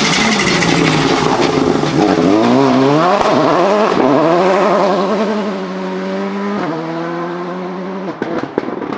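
Volkswagen Polo GTI R5 rally car's turbocharged four-cylinder engine revving hard, its pitch rising and falling through gear changes, then growing quieter as the car moves away. A few sharp cracks near the end.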